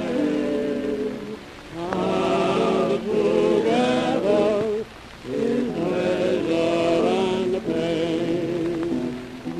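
Old Vitaphone song recording of singing with vibrato, broken by two brief dips, about a second and a half in and about five seconds in.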